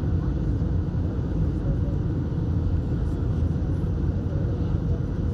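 Steady low rumble of an Airbus A320 in flight as heard inside the passenger cabin, engine and airflow noise together, with a faint steady hum above it.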